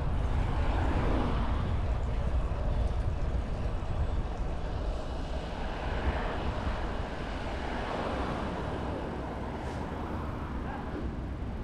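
Wind rumbling over the microphone of a cyclist riding at speed, with road traffic swelling and fading as vehicles pass.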